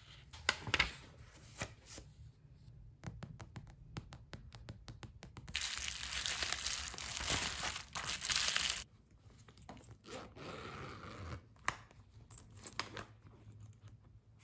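Hands handling small objects: scattered light taps and clicks, then a loud stretch of bubble wrap crinkling and crackling for about three seconds in the middle, then softer rustling and handling of a fabric zipper pouch.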